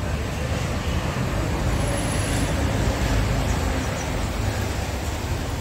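Steady city road traffic noise with a low rumble.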